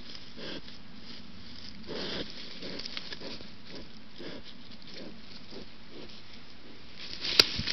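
Young wild boar close to the camera, making a run of soft, short low sounds about two a second. A single sharp click comes near the end.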